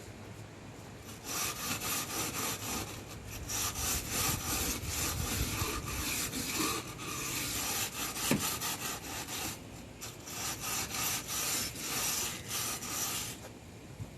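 Hand wire brush scrubbing metal framing in rapid back-and-forth strokes, cleaning the seam ahead of sealant. The scrubbing comes in two spells, with a short pause about ten seconds in.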